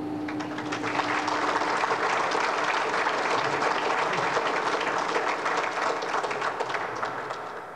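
A room full of people applauding, many hands clapping at once; the clapping builds in the first second and begins to die away near the end.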